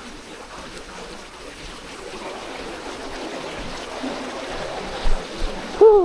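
Flood-swollen burn rushing over stones under a stone arch bridge: a steady wash of water noise. Near the end come a couple of low bumps and a short voice sound falling in pitch.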